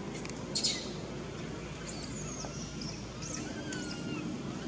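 Forest ambience: a steady low rumble under scattered short, high chirps and whistling calls of wild animals. The sharpest chirp comes about half a second in, and falling whistles follow a few seconds later.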